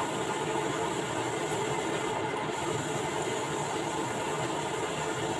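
Flour-coated chicken pieces deep-frying in hot oil in a wok, with a steady sizzle.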